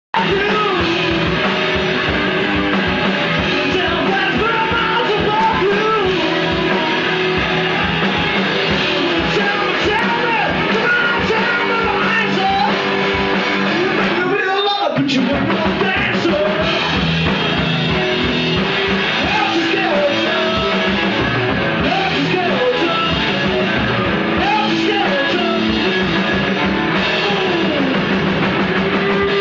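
Live rock band playing: electric guitar and drums, with a voice singing over them.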